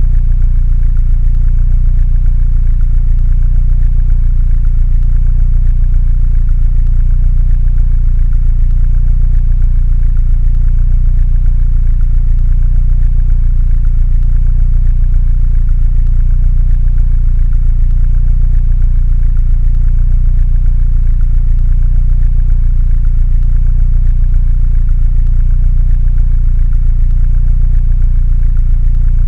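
Mini Cooper engine idling steadily, a low, even running sound with a fine regular pulse that does not change.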